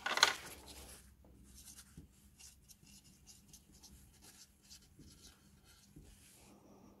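A brief rustle at the start, then a pen scratching on paper in a run of short, quick strokes as a list is written.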